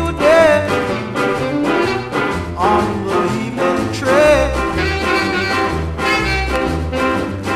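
Instrumental passage of an early-1960s Jamaican bluebeat record: a horn line with wavering pitch over a steady shuffle beat and repeating bass notes.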